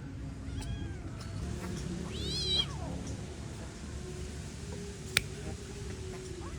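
A cat meowing: a faint call under a second in, then one loud, wavering meow about two seconds in. A single sharp click follows a little after five seconds.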